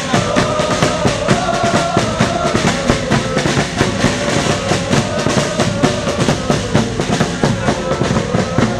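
Fast, dense drumming with a held melody line over it that slowly falls in pitch.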